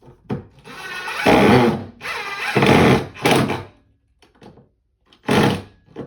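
Power drill running in several short bursts, driving screws to fasten a window-blind mounting bracket.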